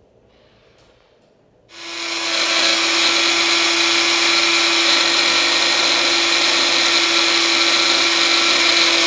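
Small personal blender switching on about two seconds in and running steadily with a constant hum, grinding dried moringa leaves into powder.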